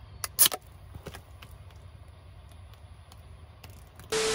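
Aluminium beer can cracked open about half a second in, a sharp double snap, with a fainter click soon after, over a low steady rumble. Near the end a sudden loud hiss with a steady hum cuts in.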